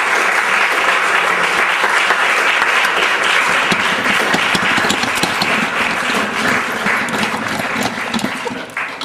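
Audience applauding, the applause dying away near the end.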